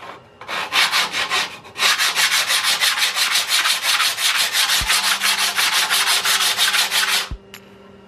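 Steel plane iron of a Stanley No. 120 hand plane rubbed back and forth on sandpaper laid flat on the bench, a rapid, even rasping of several strokes a second, as the iron is sharpened on the paper. The strokes stop suddenly near the end.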